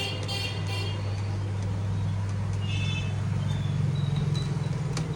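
A motor vehicle's engine running with a steady low hum, growing a little louder about three seconds in, with a few faint short high tones over it.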